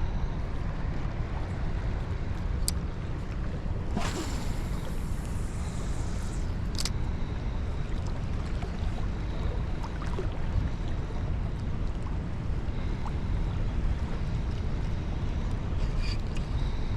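Steady low rushing of wind on the microphone beside a flowing river, with a few sharp clicks and a brief hiss about four seconds in.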